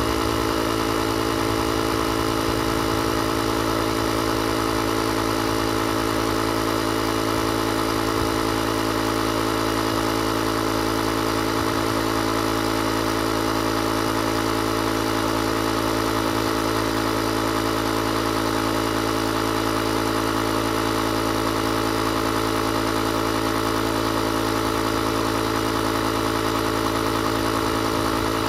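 Built-in air compressor of a JFEGWO 6000A jump starter running steadily while inflating a car tyre through a hose on the valve. It makes a constant motor hum with a buzzing drone.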